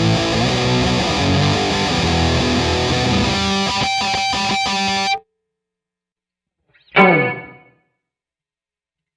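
Distorted electric guitar played through a Digitech RP1000 multi-effects pedalboard, which cuts off abruptly about five seconds in. A second and a half later a single short note drops steeply in pitch and dies away within a second.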